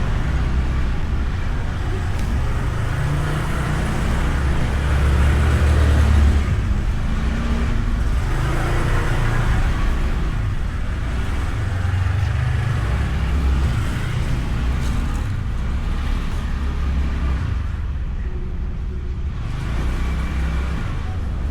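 Honda Beat single-cylinder scooter being ridden in traffic: engine running, with wind rushing over a bike-mounted microphone. The low rumble swells and eases several times as speed changes.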